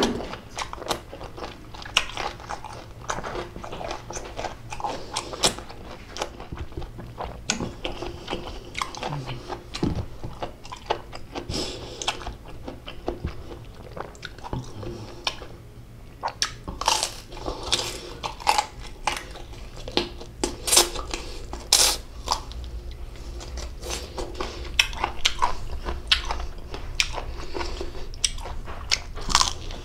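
A person biting into and chewing crisp unripe green mango close to the microphone: a steady run of sharp crunches and wet chewing, getting busier and louder about halfway through.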